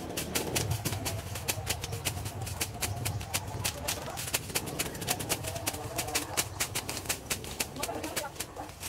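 Bolo (machete) slashing through grass and weeds: a quick, irregular run of short swishing cuts.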